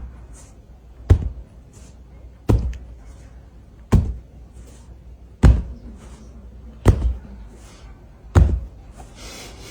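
A series of dull knocks or thuds, evenly spaced about one every second and a half, six in all.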